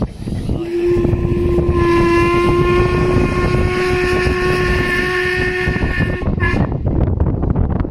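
Narrow-gauge steam locomotive whistle blowing one long steady blast of about six seconds, with higher tones joining about two seconds in. Under it is the low rumble of the locomotive running along the track.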